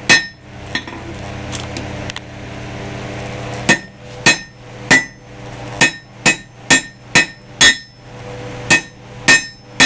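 Hand hammer striking hot steel rebar on an anvil while drawing out a pendant's handle. Each blow is sharp with a metallic ring. After two blows the hammering pauses for about three seconds with a steady noise underneath, then resumes at a quick, even rhythm of roughly two blows a second.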